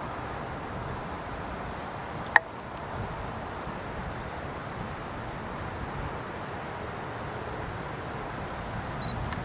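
Distant Embraer ERJ-145 regional jet landing and rolling out, a steady, even jet noise. A steady rapid pulse of insect chirps runs over it, and there is one sharp click about two and a half seconds in.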